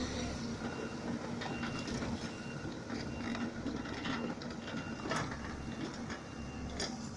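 Mini excavator running steadily, with sharp metallic clanks and clicks from the machine now and then and a faint high whine that comes and goes.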